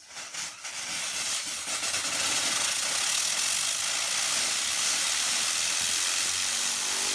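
Steam jetting from the nozzles of a spinning Hero's engine (aeolipile) rotor: a hiss that builds over the first two seconds, then holds steady and loud.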